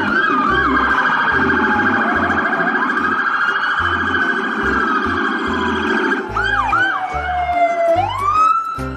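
Police car sirens sounding, more than one at once: quick repeated yelping chirps and a rapid up-and-down warble, then a slow wail that falls for about two seconds and rises again near the end.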